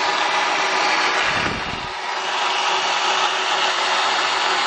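Element 75 magnetic drill's electric motor running steadily with a whirring hiss, with a brief dull bump and dip in level about a second and a half in.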